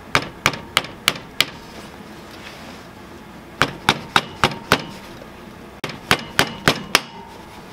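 A ball-peen hammer tapping the top of a wooden stick used as a drift to drive a part down into a Yamaha Warrior quad engine. The taps come in three bursts of about five quick, sharp strikes each, roughly three a second, with short pauses between the bursts.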